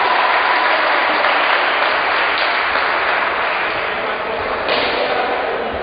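Crowd applause: a dense wash of clapping that slowly dies down.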